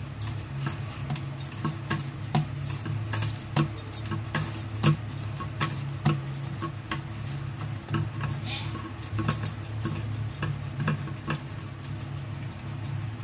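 Hands kneading maida dough on a floured tray, with bangles clinking in short, irregular clicks as the wrists work the dough. A steady low hum sits underneath.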